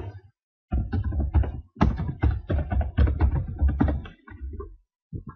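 Computer keyboard typing: a quick, uneven run of key strikes with a short break about two seconds in. The strikes stop shortly before the end, with one or two last taps after.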